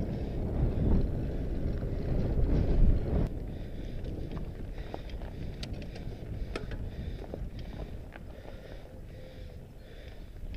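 Onboard riding noise from a fat bike: wind buffets the camera microphone and the wide tyres rumble on asphalt. About three seconds in this drops to a quieter crunch of the tyres on a dirt and gravel track, with scattered clicks and rattles from the bike.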